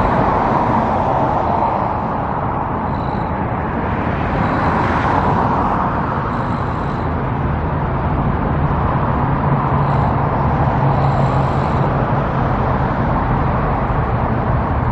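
Steady road traffic noise with vehicle engines running, with a low hum that swells for a few seconds past the middle.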